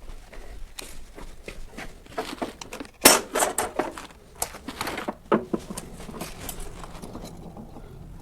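Metal tools being handled against the car's sheet metal during a straight-edge check: scattered clicks and knocks, with the loudest cluster about three seconds in.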